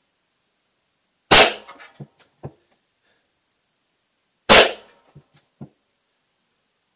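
Two pistol-calibre gunshots, about three seconds apart, from a Smith & Wesson revolver in .38 S&W firing 145-grain factory loads, each with a short echo off the indoor range. A few faint clicks follow each shot.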